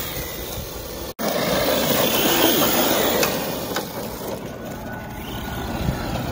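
Arrma Kraton 6S brushless electric RC truck driving fast across grass and dirt, its motor and tyres making a steady, noisy sound. The sound cuts out for an instant about a second in.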